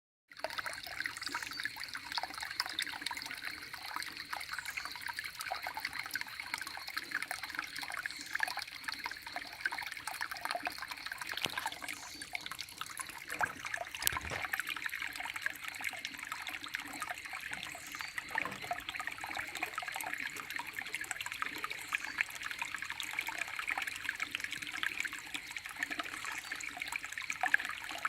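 A small stream trickling and babbling steadily over stones, a light splashy water sound.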